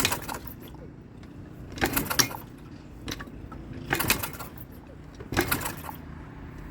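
A 125cc dirt bike kick-started four times with its spark plug out, each kick a short burst as the engine turns over without firing, about two seconds apart.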